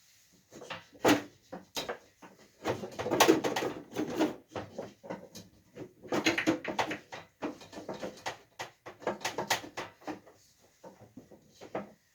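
Repeated knocking and rattling of hard objects being handled, in several busy clusters of clatter with short pauses between.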